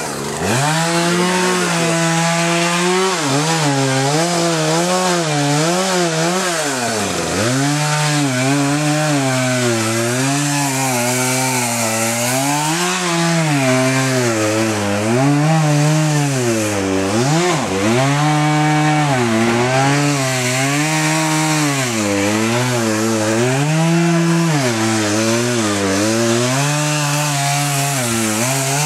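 Two-stroke chainsaw bucking the trunk of a fallen tree into firewood. The engine pitch rises and falls over and over as the chain bites into the wood and frees up, and drops sharply twice, about a quarter and about three-fifths of the way through, when the throttle is eased off.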